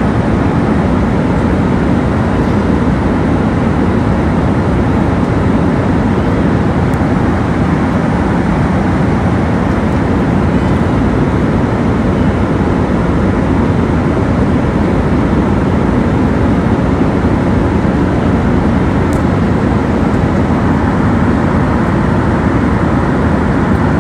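Steady, even noise of an airliner's passenger cabin, a dense low rush that holds at one level without change.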